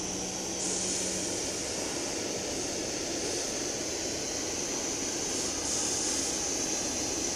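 Aster gauge 1 live-steam Pennsylvania K4s locomotive standing in steam, giving off a steady hissing rush. The sound grows a little louder under a second in, then holds even, with no beat of exhaust.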